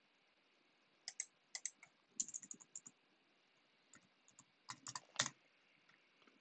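Faint typing on a computer keyboard: short runs of keystroke clicks with pauses between, about a second in, again around two to three seconds in, and a last run around four to five seconds in.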